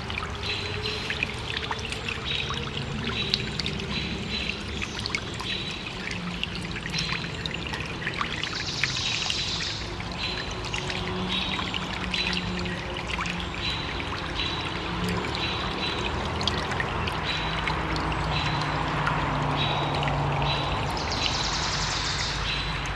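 Small woodland stream trickling and gurgling steadily. A bird repeats a short high note about one and a half times a second, and twice gives a brief, higher call lasting about a second.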